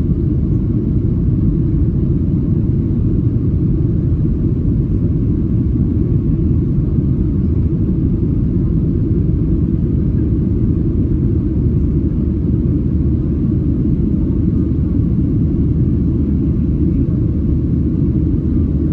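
Steady low rumble of a Boeing 737-700 with CFM56-7B engines, heard from inside the passenger cabin, even and unchanging throughout.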